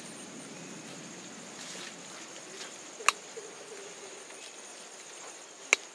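Water dripping from wet leaves onto the ground after rain, under a steady high-pitched insect drone. Two sharp taps stand out, one about three seconds in and one near the end.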